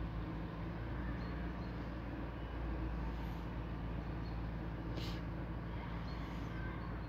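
A steady low engine-like hum, holding one pitch throughout, with a single sharp click about five seconds in.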